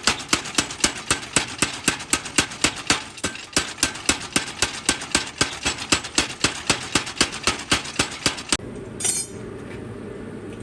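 Rapid, evenly spaced hammer blows on metal while forging a sickle blade, about four or five a second. They stop about eight and a half seconds in, leaving a steady low machine hum.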